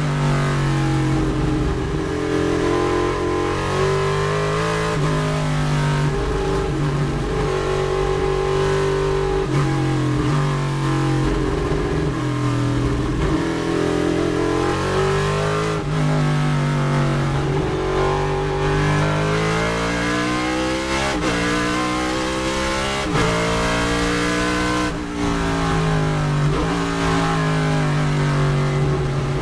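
A GTO-class Chevrolet Nova race car's V8, heard loud from inside the cockpit at racing speed. It revs up hard on the straights and falls back under braking for the corners, with abrupt breaks in the note at the gear changes.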